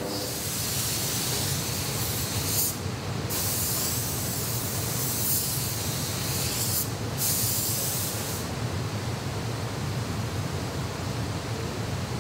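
Compressed-air paint spray gun hissing in long bursts, with short breaks about three and seven seconds in, and stopping after about eight seconds. A steady low hum runs underneath.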